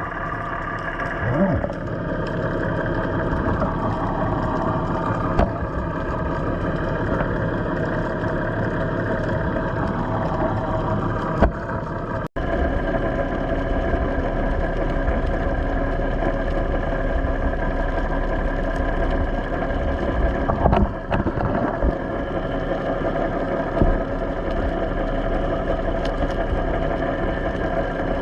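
Fishing boat's engine running steadily at a low, even speed, with a few faint knocks. The sound drops out for an instant about twelve seconds in.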